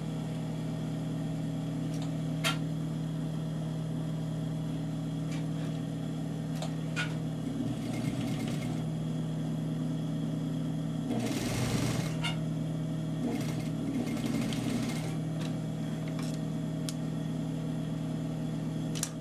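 Sewing machine stitching a seam in short runs over a steady motor hum, with a few sharp clicks; the loudest run comes about twelve seconds in.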